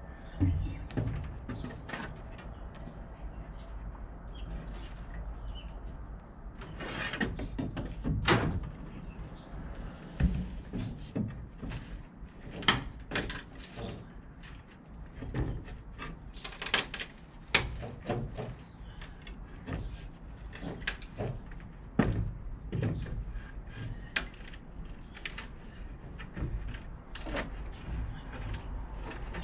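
Steel pry bar levering and knocking at wooden floorboards in hand demolition: irregular knocks and scrapes of metal on wood, several sharp ones spread through, with a cluster of louder ones about a third of the way in.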